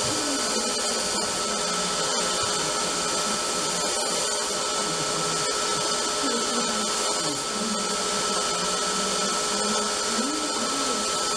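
Bader V3 belt sander running steadily with a constant whine, sanding a stack of thin stainless steel plates.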